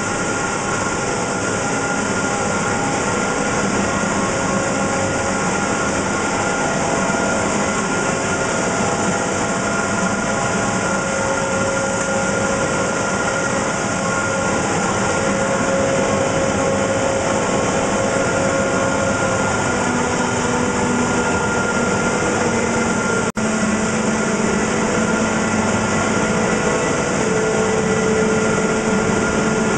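PET pelletizing line running: the extruder's motors and machinery make a steady loud hum and hiss with several steady tones. The sound cuts out for an instant about 23 seconds in.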